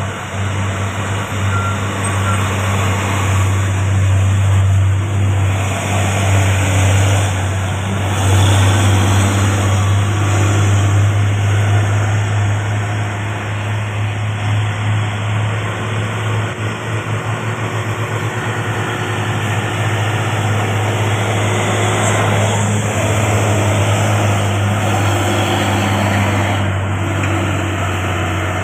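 Diesel trucks and cars driving past on a hill road: a steady low engine drone with tyre noise that swells and fades as each vehicle goes by.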